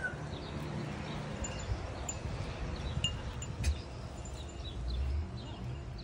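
Light metallic chime notes ringing now and then over a low rumble, with one sharp click about three and a half seconds in.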